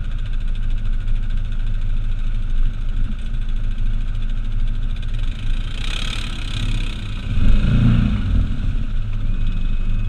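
Off-road vehicle engine running steadily at low revs, with a brief rush of noise about six seconds in and a short burst of throttle about a second and a half later.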